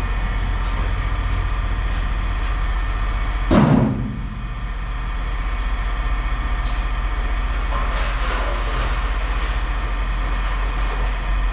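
A steady low machine hum, with one loud bang about three and a half seconds in, and a few fainter knocks later on.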